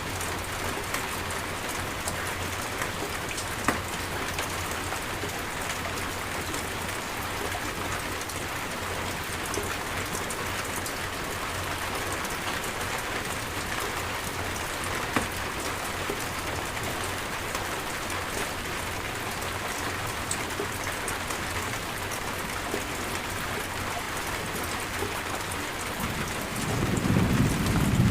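Steady rain falling in a rainstorm, with a few sharper single drops. Near the end a low rumble of thunder swells up.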